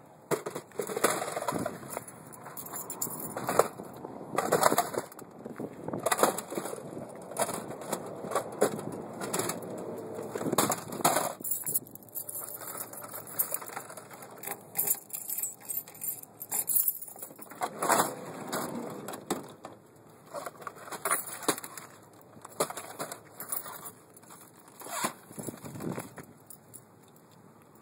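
Irregular rustling and buffeting crackles on a handheld camera's microphone: wind and handling noise, in uneven bursts that thin out over the last few seconds.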